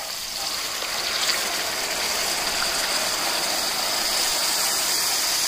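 Thin second-pressed coconut milk pouring in a steady stream into hot oil and frying onions, tomatoes and spices in a large pan, with a continuous rushing, sizzling hiss that gets a little louder about half a second in.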